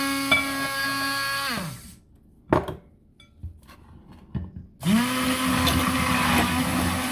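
Hand-held immersion blender motor whirring as it beats eggs into butter in a glass bowl. It winds down and stops about a second and a half in, then switches back on near the five-second mark, its pitch rising as it gets up to speed. One sharp knock falls in the pause.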